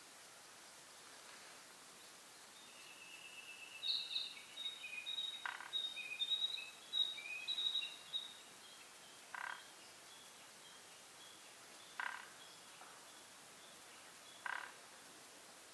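A small bird sings a run of high twittering notes for about six seconds. A short harsh buzzy call repeats about every two and a half seconds, four times.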